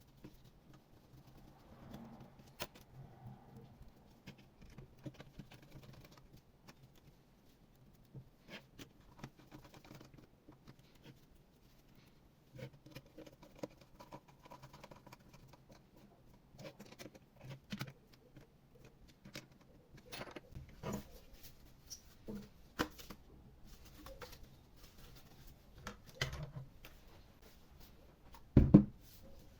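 Scattered small clicks and taps of hands working on an open laptop with small parts and tools, with one louder knock near the end.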